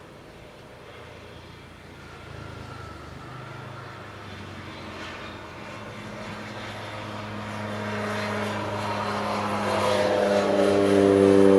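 Airliner engines growing steadily louder as the aircraft draws near, a steady hum of several stacked pitches over a rushing noise.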